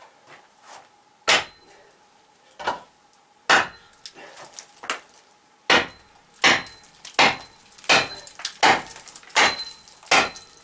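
Hammer blows driving a wedge into wood: about a dozen sharp wooden knocks, spaced out at first, then a steady run of strikes a little faster than one a second from about halfway in.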